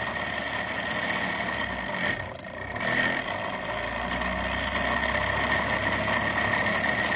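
Home-built pulse motor with a 3D-printed magnet rotor running loudly at speed: a steady mechanical running noise with a high whine, dipping briefly about two seconds in before settling again.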